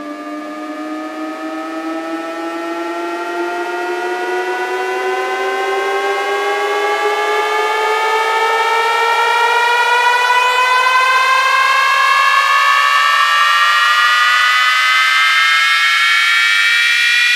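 Small electric motor of a DIY boat whining as it speeds up, its pitch climbing slowly and steadily while it grows louder, then holding loud for the last several seconds.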